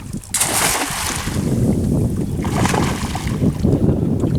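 Wind rumbling on the microphone, with two rushes of water splashing: a sudden one about a third of a second in and a weaker one past the middle.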